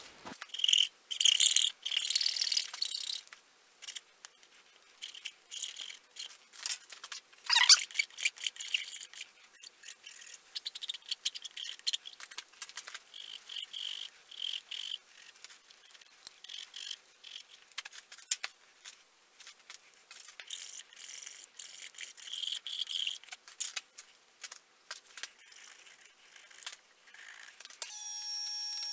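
A hand knife cutting and paring a notch into the end of a wooden sword handle: irregular dry scraping and slicing strokes. About a second before the end a drill press motor starts running with a steady whine.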